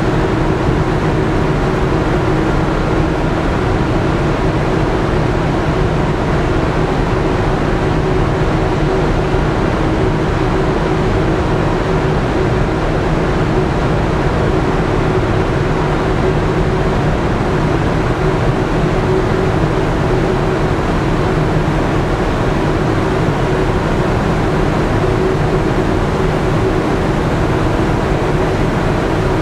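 Steady drone of the Stena Superfast VIII ferry's engines and deck machinery, with a constant hum, while the ship manoeuvres in to its berth. Wind rumbles on the microphone underneath.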